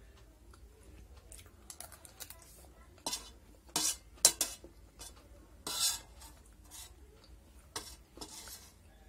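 A metal spoon scraping and clinking against a stainless steel plate as pasta is scooped up, in a string of short scrapes that are loudest about three to six seconds in.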